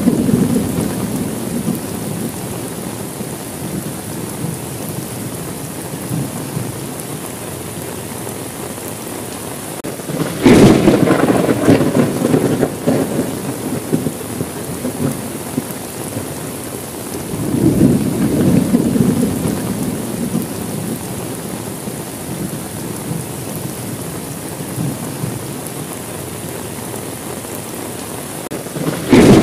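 Steady rain with thunder. A rumble fades away at the start, a sharp thunderclap comes about ten seconds in and rolls on for a few seconds, a softer rumble swells around eighteen seconds, and another sharp clap breaks near the end.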